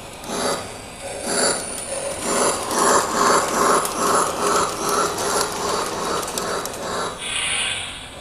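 Lionel three-rail O-gauge model train rolling and geared motor running, a mechanical clatter repeating about twice a second that is loudest in the middle. A short higher-pitched sound comes near the end.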